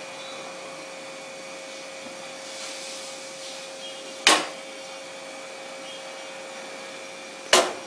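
Steady hiss of a lit gas stove burner with a faint steady hum, broken twice by a sharp metallic knock of the iron tawa against the burner's pan support, about four seconds in and again near the end.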